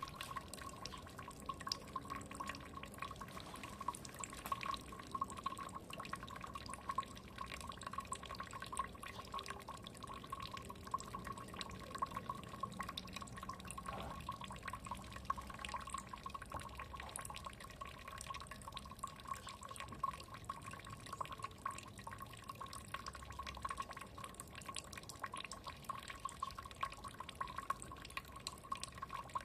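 Water trickling and dripping steadily, a quick, continuous patter of small drops.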